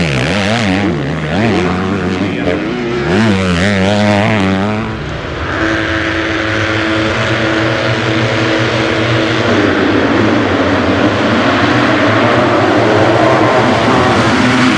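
A motocross bike's engine revving up and down as it rides through ruts. After about five seconds, a full start gate of motocross bikes holds steady high revs, and about four seconds later the engine noise swells as the pack launches off the start toward the first turn.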